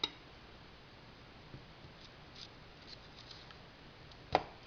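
A knife cutting a bar of Ivory soap into small squares on a plate: faint, scattered scrapes and ticks, with a click at the start and a sharp tap about four seconds in.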